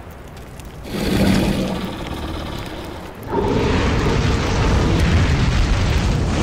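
Cinematic fire-breathing dragon sound effects. A sudden loud blast about a second in fades away, then a second, longer rush of flame with a deep rumble starts a little after three seconds in and holds.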